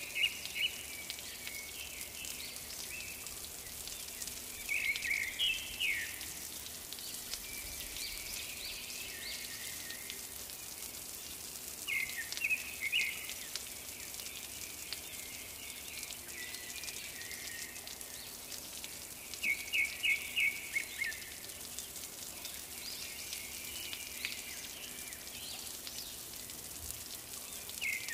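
Short bursts of high chirping, repeating roughly every seven seconds over a steady high hiss.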